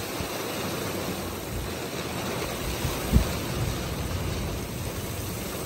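Heavy downpour: a steady hiss of pouring rain, with one brief low thump about three seconds in.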